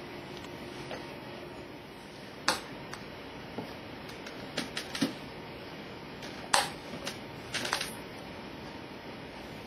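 Plastic drawers of a storage unit clacking and rattling as a toddler pulls and handles them: a scatter of sharp knocks, the loudest about two and a half and six and a half seconds in.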